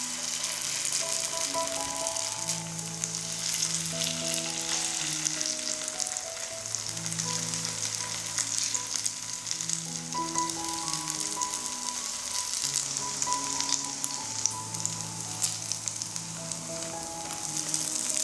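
Food sizzling and crackling in hot oil in a frying pan, a steady hiss with many small pops throughout. Soft background music with a slow melody plays underneath.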